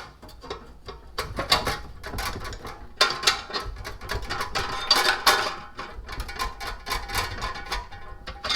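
Irregular metallic clanks, clinks and knocks of hand tools and steel parts as a transmission is worked apart from an engine.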